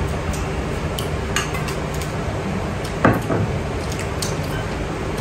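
Chopsticks and porcelain rice bowls clinking and tapping during a meal, in scattered light clicks, with a louder short knock about three seconds in, over a steady low hum.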